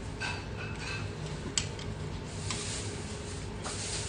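Eating sounds: metal chopsticks clicking a few times against an aluminium ramyeon pot, with soft slurping and chewing of noodles, over a steady low hum.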